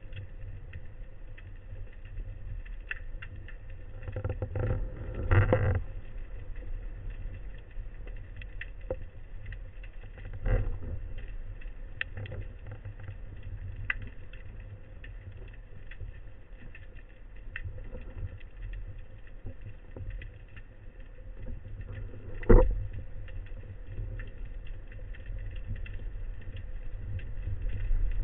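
Underwater ambient noise picked up by a camera housing during a spearfishing dive: a steady low rumble with scattered faint clicks, and a few louder knocks about five, ten and twenty-two seconds in.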